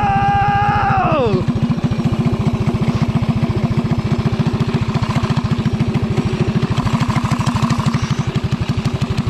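Small single-cylinder Briggs & Stratton go-kart engine held at a high steady pitch, winding down quickly off the throttle about a second in, then settling to a rapid, even putt-putt idle.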